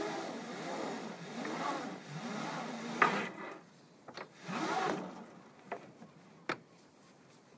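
Sailboat foredeck noise: the jib sail rustling and flapping by the mast in light air, with rigging and hardware clicks and knocks. A loud click comes about three seconds in, followed by a short rustle and a few sharp ticks.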